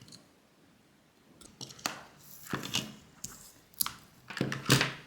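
A run of small clicks, knocks and rustles from handling the parts of a Blitzwolf smart security alarm's housing and circuit board as it is put back together. The loudest knocks come near the end.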